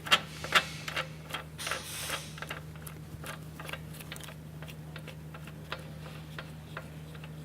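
Irregular metallic clicking of a ratchet wrench turning down the nuts on the frame's bearings, several clicks a second, louder in the first two seconds, over a steady low hum.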